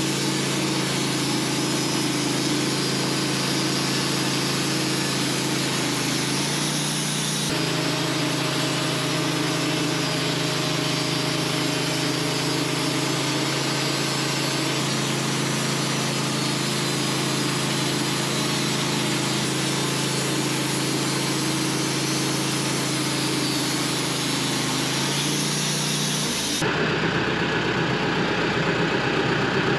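Manual sawmill's gas engine running steadily under load while the saw cuts through a large white pine log, a constant engine hum under a dense sawing hiss. The sound changes abruptly twice, and near the end the cutting hiss drops away with the engine still running.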